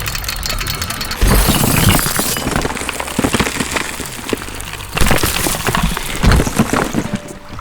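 Glass-shattering sound effects, as of crystal smashing: a sudden loud crash about a second in with a high tinkling hiss, then more sharp crashes around five and six seconds in.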